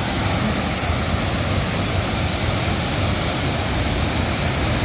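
Waterfall's steady rush of falling water: an even, unbroken roar of noise with a heavy low rumble.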